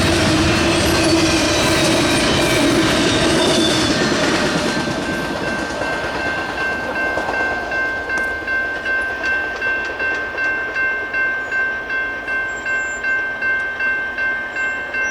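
Intermodal freight cars rolling past with wheel clatter and rumble, fading out after about five seconds. A railroad crossing bell keeps ringing at an even pace, about one and a half strokes a second.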